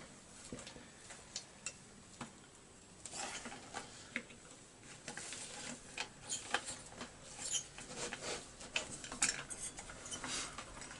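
An Allen key turning and seating the cylinder bolts on a cheap Chinese chainsaw engine, giving irregular small metallic clicks and clinks. The clicks are sparse at first and come thicker from about three seconds in.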